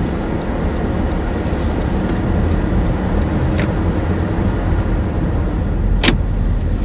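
Steady low road and engine rumble heard from inside a moving car's cabin, with a sharp click about six seconds in.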